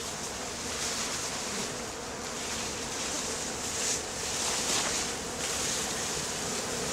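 Many honeybees flying around the hives, a steady buzzing hum, with a high hiss that swells and fades.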